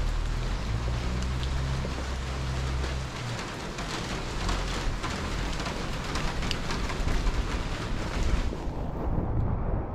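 Steady rain falling, an even hiss with many small drop impacts. A low steady hum runs under it for the first three seconds, and the high part of the rain sound drops away near the end.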